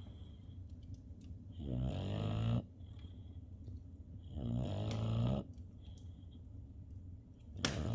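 Slow, regular snoring: two long snores, each lasting about a second and a little under three seconds apart, with a third starting near the end.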